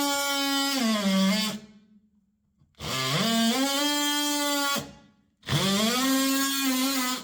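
DeWalt oscillating multi-tool cutting a thin wood floor panel, with a steady high buzzing whine. It runs in three bursts: it winds down after about a second and a half, spins up again about three seconds in, stops near five seconds, then starts once more and cuts off near the end.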